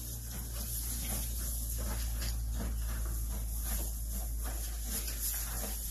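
Horses munching and rustling hay, with many short, irregular crunches over a steady low rumble.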